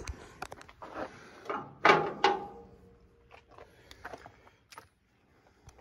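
Scattered clicks, knocks and rustles of hands working a fuel filter by hand in a cramped truck engine bay, with the loudest clunk about two seconds in, then a few faint ticks.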